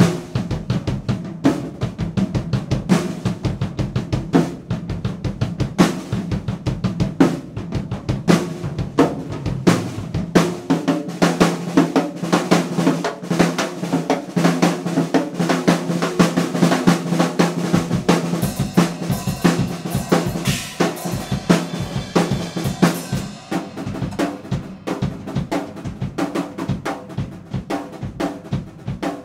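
DW acoustic drum kit played fast and hard, a dense stream of snare, tom and bass drum strokes over a steady low backing track. Cymbals wash in strongly about two-thirds of the way through.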